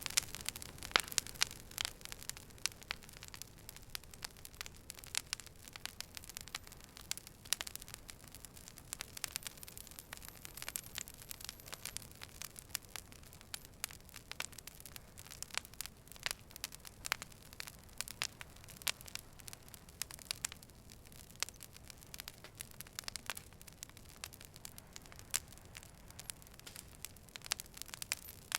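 Wood fire burning with irregular sharp crackles and pops over a low, steady hiss, the pops thickest in the first couple of seconds.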